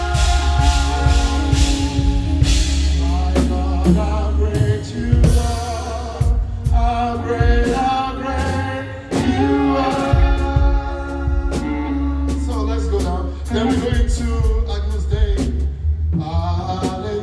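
A live band playing gospel praise music: singing over a drum kit and a heavy bass line.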